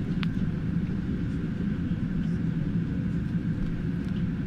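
Steady low running rumble of a moving trolleybus heard from inside the cabin, with a faint steady high whine above it. One short click sounds about a quarter second in.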